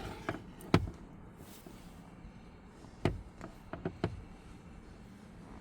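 A handful of short knocks and taps: plastic parts of the cabin air filter housing being handled. There is a sharp one under a second in and a quick cluster of four or five about three to four seconds in.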